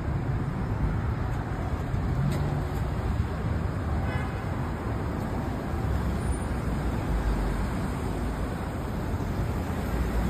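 Steady city street traffic noise, a low, even rumble of vehicles.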